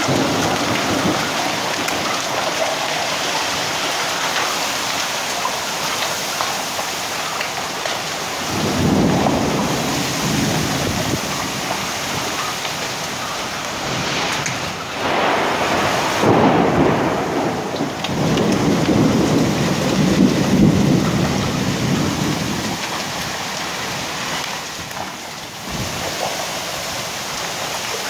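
Heavy rain and hail pouring down in a thunderstorm, a steady loud hiss with three louder low rumbling swells, about a third of the way in and twice more past the middle.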